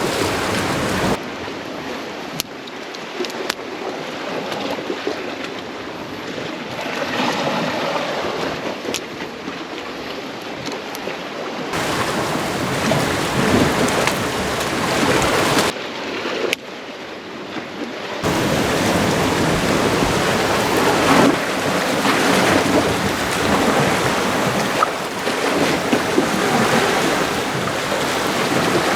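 Steady rushing noise of sea waves and wind against the rocks, changing abruptly at several cuts, with a few faint ticks.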